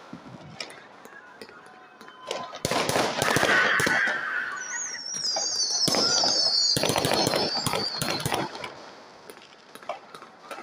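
Fireworks going off: rapid volleys of bangs and crackles about three seconds in and again from about six to eight seconds. A warbling whistle falls in pitch from about five to eight seconds.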